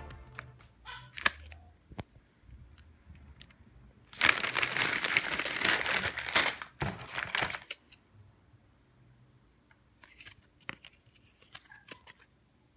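Crinkling plastic snack-chip bag being handled: a loud rustle lasting about three and a half seconds in the middle, with light clicks and smaller rustles of packets before and after it.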